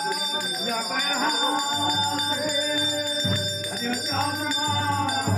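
Devotional Hindu singing by several voices, with bells ringing steadily throughout. A low, regular beat comes in about two seconds in.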